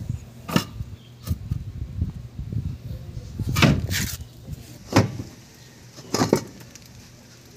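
A handful of separate knocks and clunks of metal being handled as the lowered manual transmission is shifted by hand. The strongest come in a short cluster a little over halfway through.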